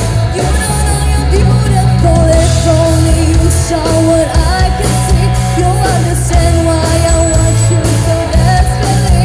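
A singer performing a song over pop-rock backing with a steady beat and bass, the voice holding long notes and sliding between them.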